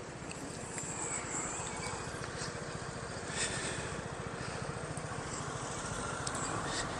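Electric kick scooter rolling along a city street: a steady rumble of its small wheels on the asphalt, with wind fluttering on the microphone.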